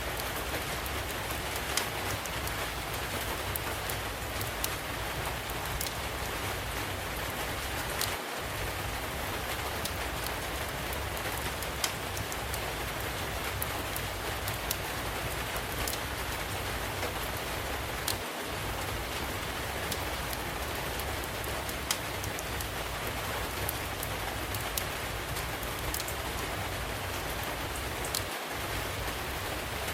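Steady rain falling, mixed with a wood fire crackling: short sharp pops every second or two over an even hiss.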